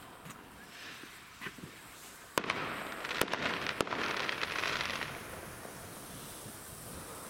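Weco 'Pink Stars' firework fountain burning with a steady hiss. About two and a half seconds in, a sharp crack opens a louder, denser spell of hissing with several more sharp pops, which eases back to the steady hiss about five seconds in.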